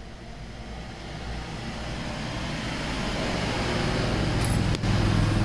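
A motor vehicle engine running and growing steadily louder, as if approaching, with a sharp click near the end.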